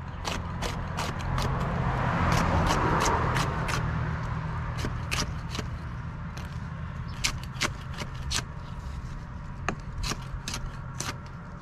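Kitchen knife chopping a yellow bell pepper on a thick wooden chopping board: sharp, irregular strokes of the blade against the wood, about two a second, with short pauses. Under it a steady low hum, and a swell of rushing noise that is loudest about two to four seconds in.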